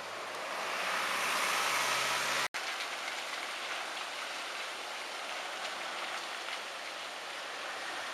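A motor vehicle's hum rising together with a hiss over about two and a half seconds, cut off abruptly by an edit; then a steady, even outdoor hiss like heavy rain.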